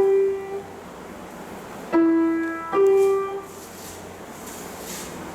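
Piano playing two single notes, a lower note then a slightly higher one, less than a second apart, each left to ring and fade. The two notes differ in pitch. The higher note of the same pair is still ringing out at the start.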